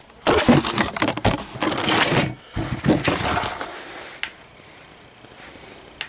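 Handling noise: fast clattering and rubbing as gloved hands jostle the camera and pick up an infrared thermometer. It dies down after about three and a half seconds, leaving a faint steady hiss.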